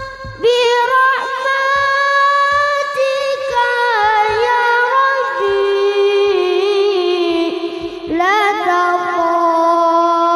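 Music: a high singing voice holding long, wavering notes that slide from pitch to pitch, over a light, regular beat.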